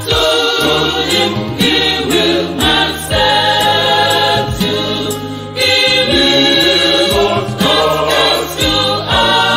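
Mixed church choir singing a gospel hymn, with held low notes underneath the voices.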